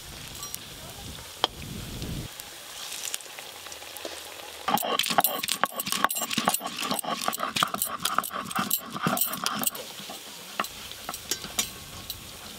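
Ginger and green chillies being crushed with a stone roller on a stone grinding slab (sil-nora): a fast, uneven run of knocks and scrapes from about five to ten seconds in. Before and after it, a soft sizzle of pieces frying in hot oil in a wok.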